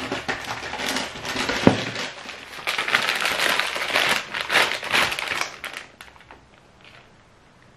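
Plastic bag of dried pasta crinkling and rustling as it is handled, with a single sharp knock about a quarter of the way in. The crinkling stops about six seconds in.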